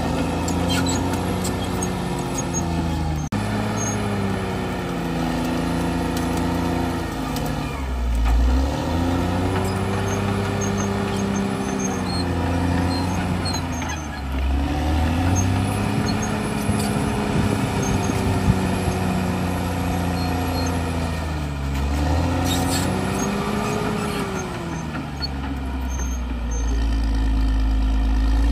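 CAT D6R bulldozer's diesel engine working under load as the dozer pushes earth, its note repeatedly sagging and climbing back every few seconds.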